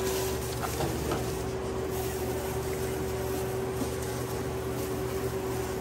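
Steady hum of restaurant kitchen equipment with one constant mid-pitched tone, with a few faint light clicks and rustles about a second in as shredded lettuce is spread on a sub.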